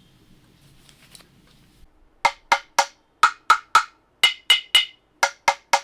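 Handmade bamboo woodblock being played, cut so that one bamboo gives several different tones. After about two seconds of quiet it starts a steady rhythm of three quick knocks, about one group per second, each knock a short woody click with a brief ring whose pitch changes between groups.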